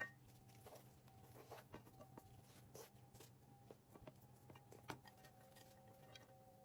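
Near silence: faint room tone with a low hum and a few scattered faint clicks and knocks, the sharpest at the very start and about five seconds in.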